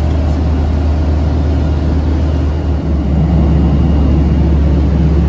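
Steady in-flight cabin noise of a jet airliner: a loud, even low rumble of engines and airflow with a hiss above it. The rumble shifts slightly about halfway through.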